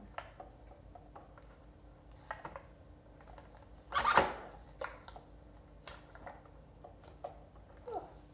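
Light clicks and knocks of kitchen items being handled, with one brief louder clatter about four seconds in.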